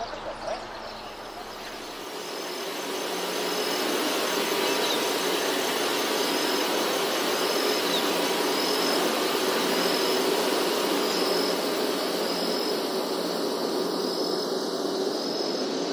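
Steady mechanical hiss with a low hum, like machinery running, rising over the first few seconds and then holding. Faint short high chirps repeat every second or so.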